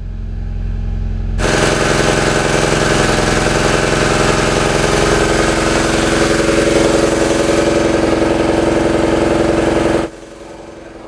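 Portable generator engine running steadily and loud, with a low rumble swelling into a full, close running sound about a second in. It drops off sharply near the end, leaving a much fainter hum.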